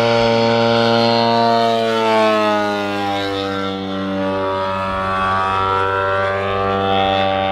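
DA150 twin-cylinder two-stroke gas engine of a giant-scale RC biplane running in flight, a loud droning tone whose pitch drops about two seconds in and then holds steady.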